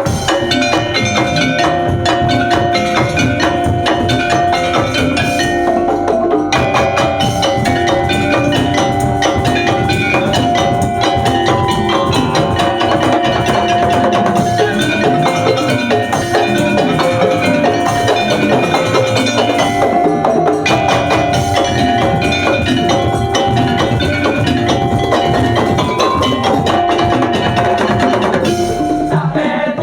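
Madurese tongtong ensemble playing loudly and without a break: dense, driving wooden percussion with a pitched melody of held and stepping notes over it.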